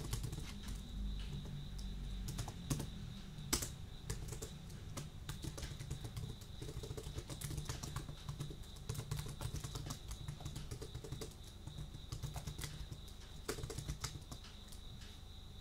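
Typing on a computer keyboard: a steady run of irregular keystroke clicks, with a few louder clacks. Underneath is a steady high-pitched chirring.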